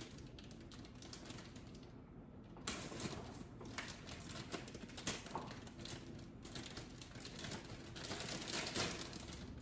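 Plastic bag of shredded cheese crinkling and rustling as it is handled and opened, with a short lull about two seconds in.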